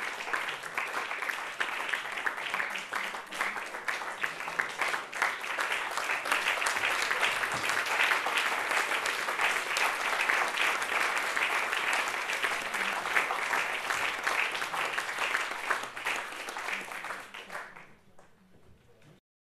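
Concert hall audience applauding, a dense clatter of many hands that is strongest in the middle, dies away near the end and then cuts off.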